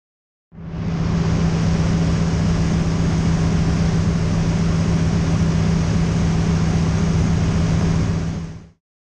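DHC-2 Beaver's engine and propeller droning steadily in cruise flight, a strong low hum under a rushing noise. It fades in about half a second in and dies away just before the end.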